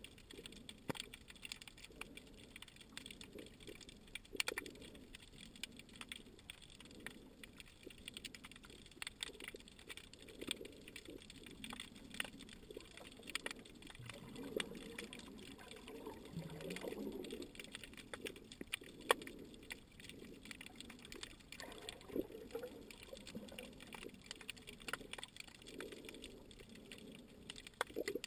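Faint underwater sound: low, uneven sloshing of water with many scattered sharp clicks and crackles.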